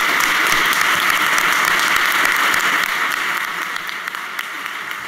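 Audience applauding, a dense steady clapping that eases off a little after about three and a half seconds.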